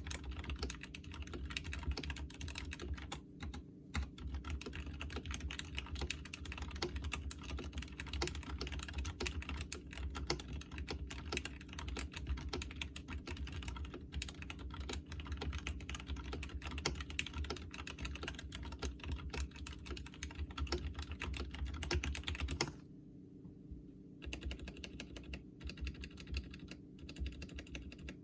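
Ajazz AK33 mechanical keyboard, modded with lubed Ajazz black linear switches, clipped and lubed stock stabilizers and PE foam, being typed on fast in a steady stream of keystrokes. The typing stops for about a second roughly three-quarters of the way through, then resumes more sparsely.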